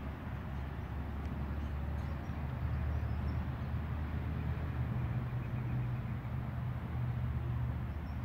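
A slowly moving vehicle's engine running with a steady low hum, with road noise.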